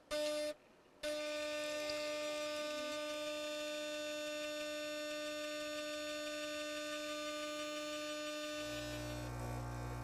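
Gaggia Velasca super-automatic espresso machine's vibratory pump brewing an espresso lungo: a half-second pre-infusion pulse, a brief pause, then a steady buzzing hum as the coffee runs into the cup. A deeper hum joins near the end.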